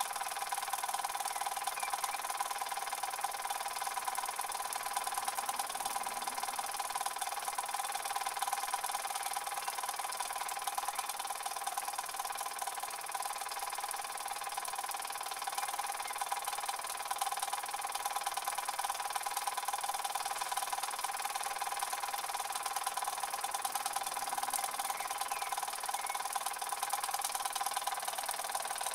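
Toy live-steam stationary engines with oscillating cylinders running steadily: a fast, even chuffing clatter with a steam hiss.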